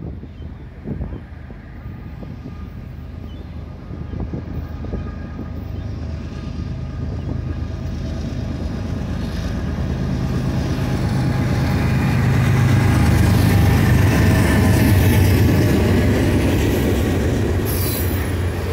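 A BNSF diesel-hauled coal train approaching and passing. The locomotives' engine drone grows steadily louder to a peak, then eases slightly as the loaded coal cars roll past on the rails.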